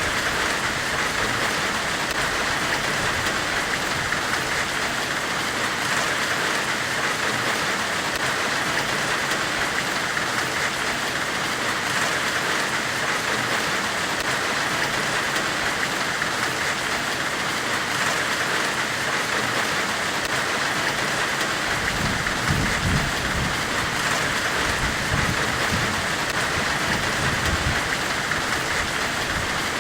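Steady, even hiss from a forge-weld-themed white-noise track, strongest in the upper middle. About two-thirds of the way through, an uneven low rumble joins underneath.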